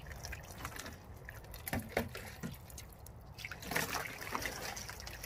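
Water poured from a plastic bucket over a small wet dog, trickling and dripping off its coat into a plastic wading pool as it is rinsed during a bath.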